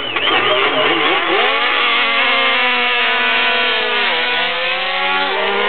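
MotoGP racing motorcycles running at high revs as they ride by, several engine notes overlapping and sliding up and down in pitch. The pitch dips sharply about four seconds in and again just after five seconds, climbing back each time.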